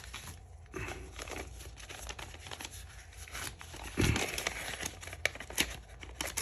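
Paper bills and cash envelopes being handled, rustling and crinkling as money is pulled out of an envelope, with a thump about four seconds in.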